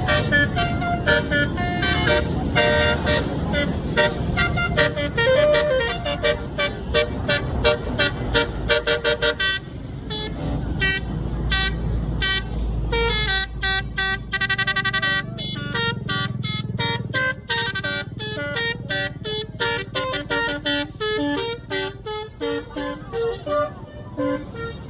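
A tour bus's Basuri telolet horn playing a fast melody of short toots, with a quick trill about two-thirds of the way through, over the low rumble of the bus engine that fades out about halfway.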